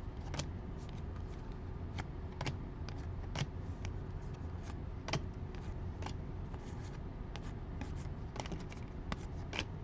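A stack of Panini Chronicles football trading cards being flipped through by hand, card stock sliding and clicking. The light, irregular clicks and scrapes come about once a second over a low steady hum.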